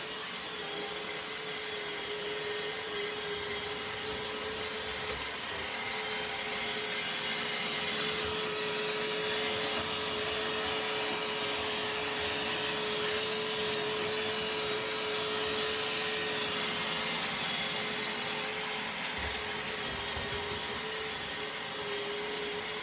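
Robot vacuum cleaner running steadily: an even motor hum with a steady whine and airy hiss, rising and falling slightly as it moves about.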